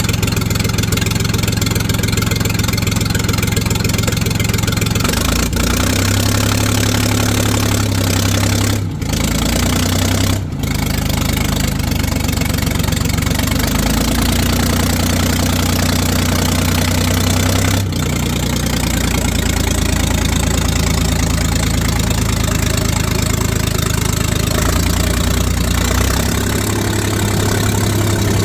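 Diesel engine of a 1973 Ford 4500 industrial backhoe running steadily, its speed shifting up and down several times, with two brief breaks about a third of the way in.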